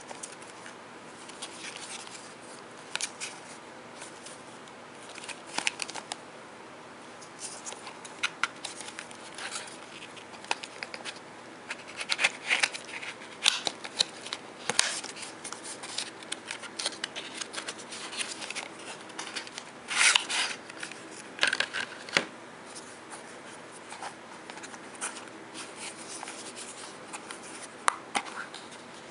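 Hands unpacking a camera lens filter from its packaging: irregular rustling and scraping with sharp clicks, loudest about twenty seconds in.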